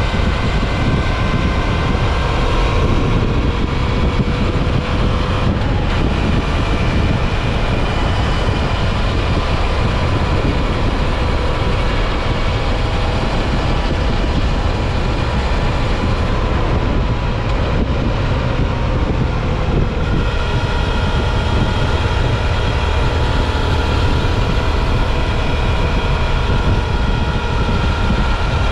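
Wind rushing over the microphone of a moving motorcycle, with the Suzuki V-Strom 650 XT's V-twin engine running underneath, its pitch drifting slowly up and down.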